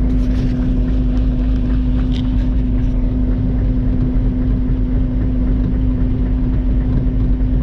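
Komatsu excavator's diesel engine running steadily, with a constant low drone and hum.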